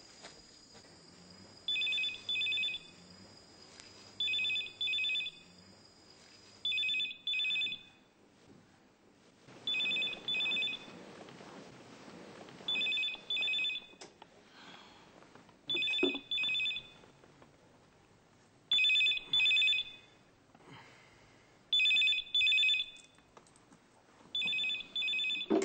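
Telephone ringing in a repeating double ring, two short rings about every three seconds, nine times, until the call is answered.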